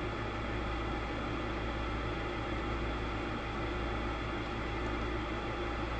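Steady low hum with an even hiss, unchanging throughout, with no clicks or other distinct events.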